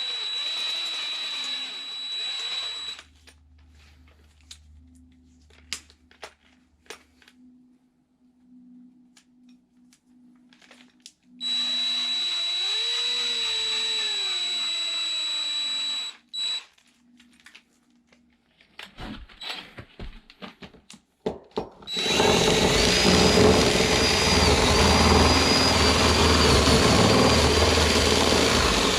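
Power drill turning a long bit on a socket extension, drilling down through a wooden board. It runs in two short bursts with a high motor whine, about three and five seconds long, the second rising then falling in pitch. From about two-thirds of the way in it bores steadily and loudly into the wood.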